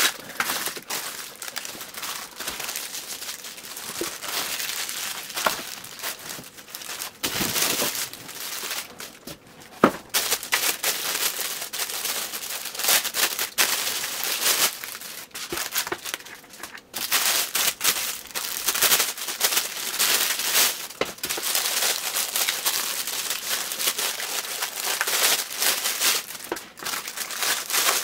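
Clear plastic packaging bags crinkling and rustling as they are handled and pulled open by hand, with scattered sharp clicks and a loud knock about ten seconds in.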